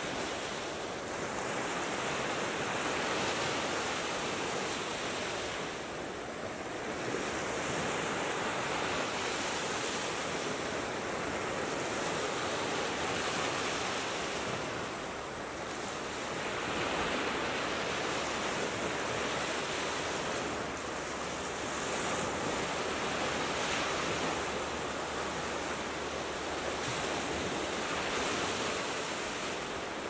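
Sea surf breaking and washing up a sandy beach: a continuous rush of noise that swells and eases as the waves come in.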